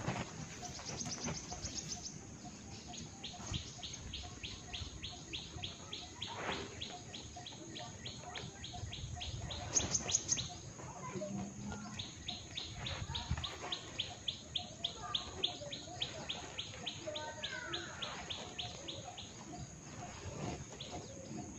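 Birds chirping: long runs of quick, high repeated chirps at about four a second, with a few other gliding calls mixed in.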